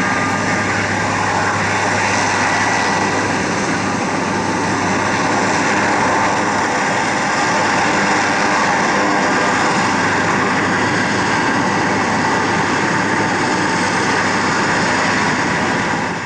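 Eurocopter AS332 Super Puma helicopter taxiing: the steady high whine of its twin turboshaft engines over the noise of its turning main and tail rotors, loud and even throughout.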